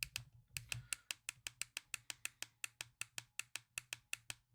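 Small plastic push button on a ring light's inline control cord clicked over and over in quick succession, several clicks a second, stepping the brightness up to its maximum.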